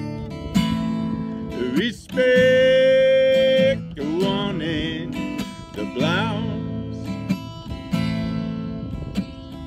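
A man singing over his own strummed acoustic guitar, holding one long note about two seconds in, followed by shorter wavering sung phrases.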